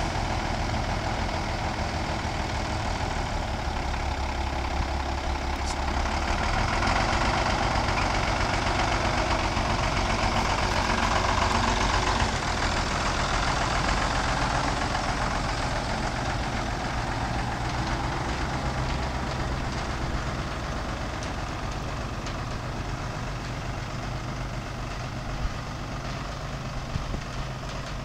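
1991 Ford L8000's six-cylinder diesel engine running steadily, then pulling away with dark exhaust smoke from its stack and growing slowly fainter over the last half.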